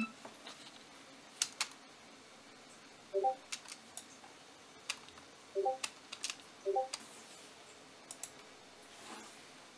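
Scattered sharp clicks of a computer keyboard and mouse, some in quick pairs, with three short, soft pitched blips in between.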